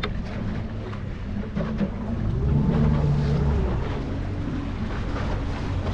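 Small boat's outboard motor running under way, with wind and water noise over it. The revs rise and then ease back about two to three seconds in.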